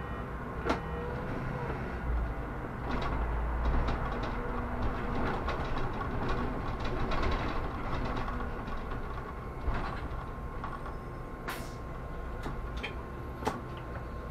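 Solaris Urbino 18 articulated city bus on the move, heard from inside the cabin: a steady low drivetrain and road rumble, heavier in the first half and easing later, with scattered sharp knocks and rattles from the body and fittings.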